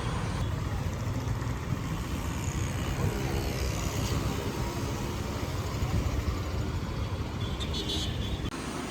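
Road traffic: a steady wash of vehicle engines and tyre noise passing by.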